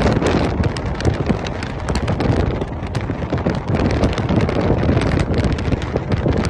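Wind rushing and buffeting on a phone microphone filmed from a moving vehicle, with many crackling spikes over a steady low rumble.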